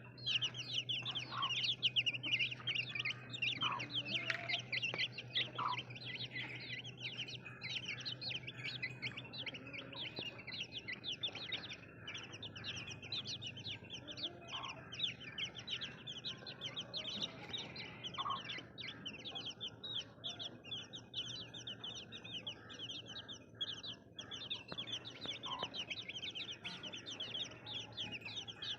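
A flock of baby chicks peeping continuously, many short high-pitched calls overlapping, with a steady low hum underneath.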